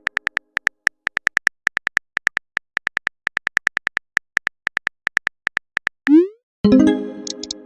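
Phone keyboard typing sound effect: a rapid, uneven run of short tapping clicks, several a second, for about six seconds. Near the end a quick rising whoosh plays as the message is sent, followed by a ringing message-tone chime that fades out.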